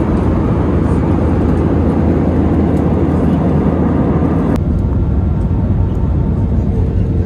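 Jet airliner cabin noise at the window seat: a steady, loud rumble of engines and airflow. About halfway through it changes abruptly to a duller rumble with less hiss as the plane comes in low on approach.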